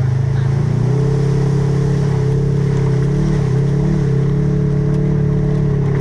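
Four-wheeler engine running steadily under load, its pitch stepping up a little about a second in, while it crosses a creek.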